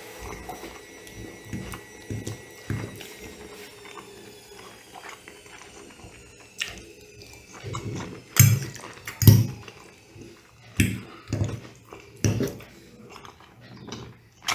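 Close-miked wet chewing and mouth noises of someone eating pasta with clam sauce, soft at first, with a run of sharper, louder smacks in the second half.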